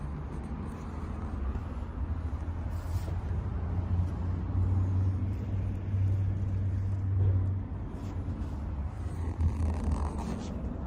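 Epson EP-707A inkjet printer's mechanism running through its power-on start-up cycle, a low steady hum. The hum swells in the middle and drops back about two-thirds of the way through.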